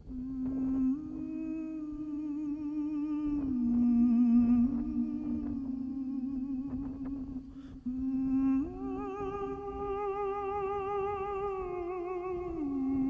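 Music: a wordless voice humming slow, long held notes with vibrato, moving in steps between a few pitches, over a low background rumble.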